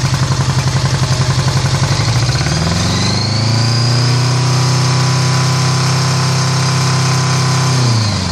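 Honda GL1100 Gold Wing flat-four engine idling with an even, pulsing knock, then revved up about two seconds in, held at higher revs, and dropped back to idle near the end. The knock seems to come from the right side of the engine, and the owner can't tell whether it is an engine knock or an exhaust leak.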